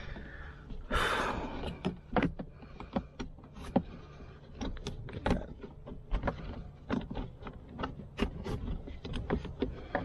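Hands working a plastic interior car trim panel and seatbelt webbing: scattered clicks, taps and small knocks of the plastic as it flexes, with a longer scraping rustle about a second in.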